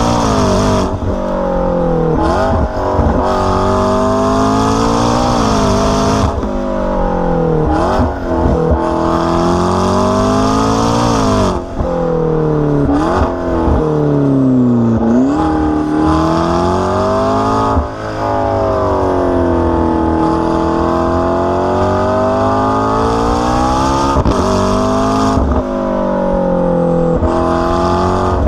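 McLaren 650S twin-turbo V8 through an AWE exhaust, driven hard: the engine note climbs again and again through the revs and drops sharply at each gear change, with slower falls where the car slows down.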